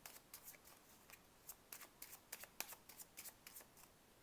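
Faint hand shuffling of a tarot deck: a quick, irregular run of soft card flicks and snaps that stops shortly before the end.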